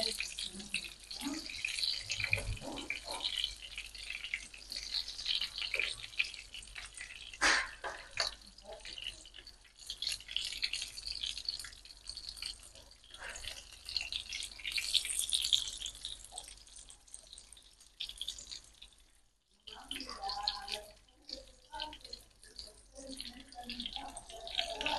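Breadcrumbed chicken pieces shallow-frying in a pan of hot oil, a steady crackling sizzle, with occasional sharp clicks of the fork and utensil against the pan. The sizzle dips briefly about three quarters of the way through.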